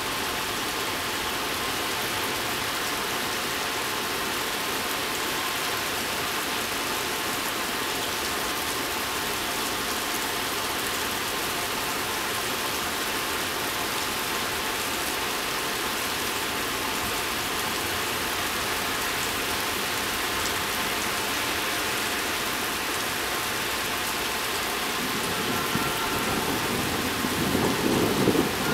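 Heavy summer rain falling steadily, pattering on a wet stone ledge and the pavement below. Near the end a low rumble of thunder starts to build.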